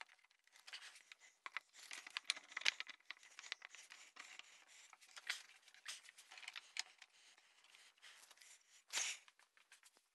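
Faint handling noise of hand work at a bench: irregular clicks and scrapes as spring clamps are set on freshly glued wood blocks and the blocks shift against the board, with a louder scrape about nine seconds in.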